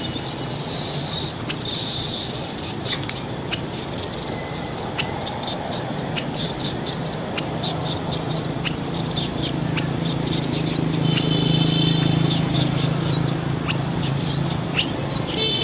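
Baby macaque crying: a long run of short, high-pitched squeaking cries, about one every second or less. A steady low hum runs underneath.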